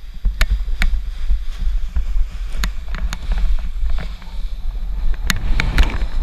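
Heavy wind buffeting on the camera's microphone during a running paraglider launch, with a string of sharp knocks and clicks.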